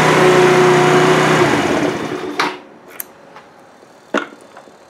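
Genuine Buddy 125 scooter's stock single-cylinder four-stroke engine idling, echoing in the garage, then switched off about a second and a half in and winding down to a stop. A few sharp clicks follow.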